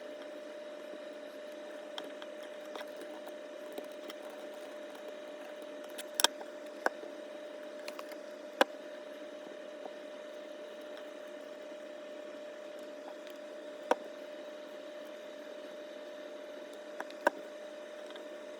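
Scattered sharp clicks and taps from a small tool and parts being handled while the grimy chassis block of an HO scale model locomotive is cleaned, over a steady hum with a held tone.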